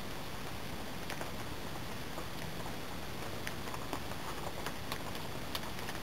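A handful of small, sharp, irregular clicks and crackles of a Mora knife cutting and trimming a strip of birch bark, over a steady hiss.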